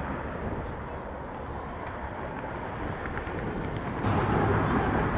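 Steady outdoor background noise of road traffic. About four seconds in it grows louder and a low steady hum joins it.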